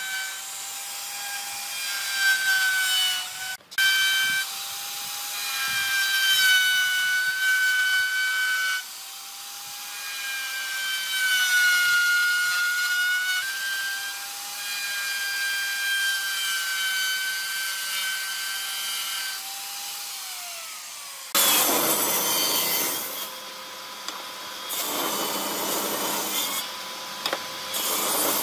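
An electric power tool working wood. Its motor whines steadily with a slightly wavering pitch and cuts out briefly just under four seconds in. About twenty seconds in its pitch falls away, and a rougher, harsher noise of the tool biting into the wood follows in uneven bursts.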